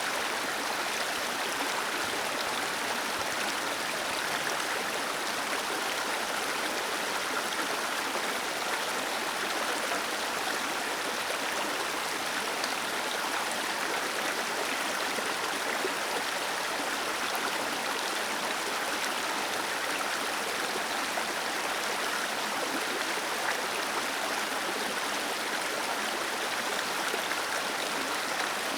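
Small waterfall pouring into a stream: a steady, even rush of falling and flowing water.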